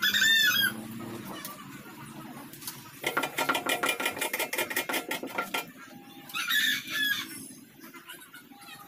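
Birds calling, with a short call of quick up-and-down chirps at the start and another about six and a half seconds in. Between them comes a run of rapid clicking or rattling, about two and a half seconds long, with a ringing metallic tone.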